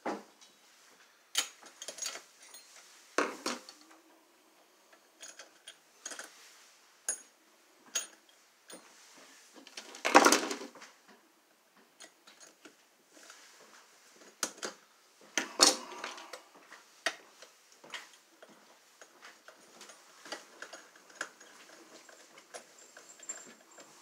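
Scattered metallic clicks, knocks and rattles as electrical wires and a screwdriver are worked against a metal outlet box, fitting a ground wire to the box's green ground screw. The loudest knock comes about ten seconds in, another about five seconds later.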